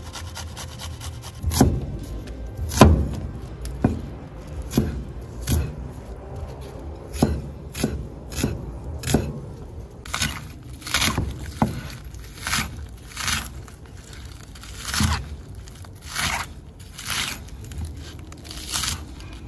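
Large serrated knife chopping onion and then scallion on a wooden cutting board: a steady run of sharp knocks on the board, about one every second, with crisper, higher cuts in the later half.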